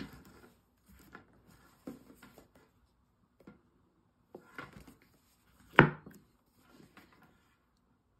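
Handling noise from a stiff black leather handbag being turned and opened by hand: scattered soft rubs, creaks and light knocks, with the sharpest knock about six seconds in.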